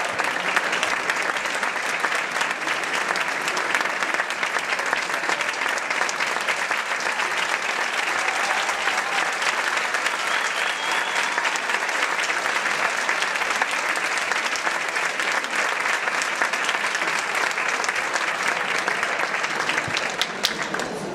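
Audience clapping steadily for about twenty seconds, thinning out right at the end.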